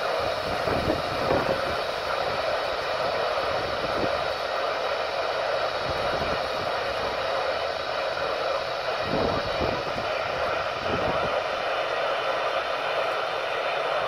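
Midland handheld weather radio's speaker giving out steady FM static hiss, an open receiver channel with little or no signal. A few soft low bumps come through around the start and again past the middle.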